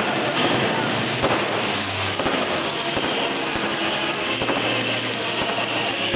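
Fireworks display: aerial shells bursting overhead with dense crackling and scattered sharper pops, while ground fountains spray sparks.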